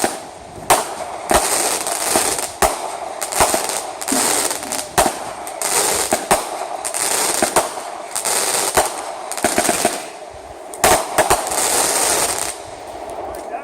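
Consumer fireworks going off in a rapid barrage: a string of sharp bangs, one or two a second, with crackling hiss between them, dying away near the end.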